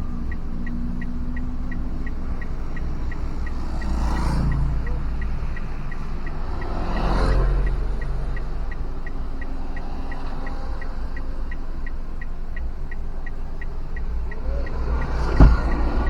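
Car driving along a road, heard from inside: steady low engine and road rumble, with two other vehicles swelling past about four and seven seconds in. A faint, fast, even ticking runs underneath, and there is a single sharp thump near the end.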